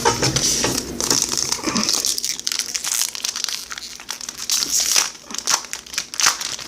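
Foil trading-card pack wrapper crinkling and crackling in the hands as it is handled and opened, in dense irregular rustles.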